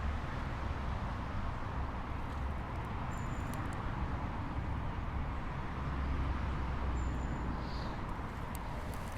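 Steady rush of flowing river water, with wind rumbling on the microphone in gusts.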